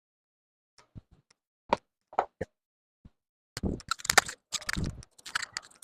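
Hand tools and metal bike parts being handled while working on an e-bike's wheel: a few separate clicks and knocks, then about halfway through a busy run of clattering and rattling.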